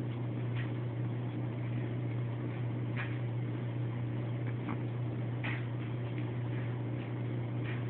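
A steady low hum, with a few brief, faint high-pitched sounds every second or two.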